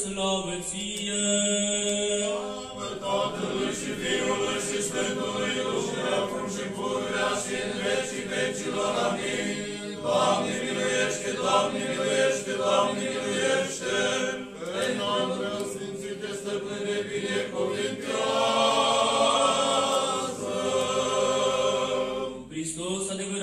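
A group of voices chanting an Orthodox liturgical hymn unaccompanied, swelling on a long held chord near the end.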